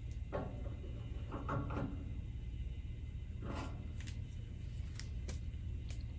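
Light workshop handling sounds: a few short knocks and scrapes followed by several sharp clicks, as a machinist's level is set on the lathe and the leveling bolts are adjusted, over a steady low hum.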